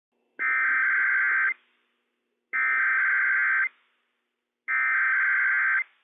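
Emergency Alert System SAME header from NOAA Weather Radio: three identical bursts of digital data tones, each just over a second long and about two seconds apart. The bursts encode the alert, here a Required Weekly Test for the listed counties.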